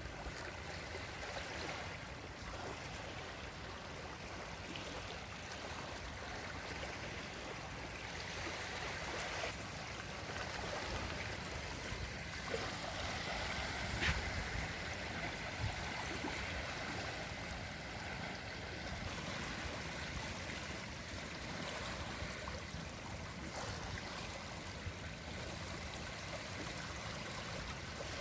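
Sea water washing and lapping on the shore, a steady rushing wash, with a single short click about halfway through.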